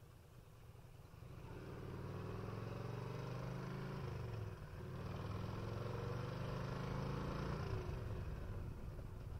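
1994 Harley-Davidson Electra Glide's 1340 cc Evolution V-twin under acceleration. Its pitch climbs, dips briefly about four and a half seconds in as it shifts up a gear, climbs again, then falls away near the end as the throttle is rolled off.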